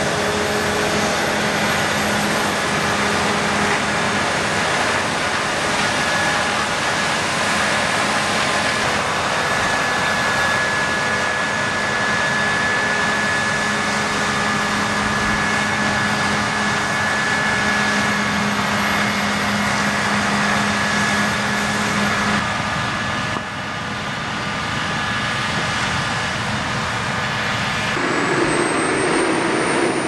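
Claas Lexion 8800 combine harvester running as it harvests wheat and unloads grain through its auger beside a tractor: a steady, dense machine din with a high whine. About two seconds before the end the sound changes abruptly to a different engine note, a tractor's.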